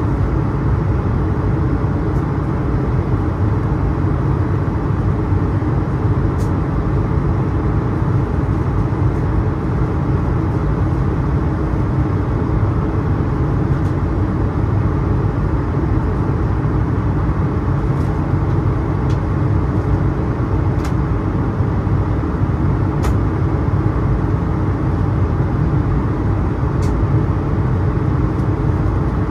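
Steady cabin roar inside an Airbus A220-300 in flight: the low rush of airflow and the aircraft's Pratt & Whitney geared turbofans at an even level, with a few faint ticks scattered through it.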